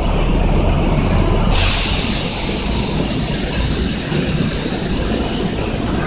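Compressed air hissing suddenly from a stationary Kintetsu limited express train about a second and a half in, then slowly fading, over the train's steady low hum.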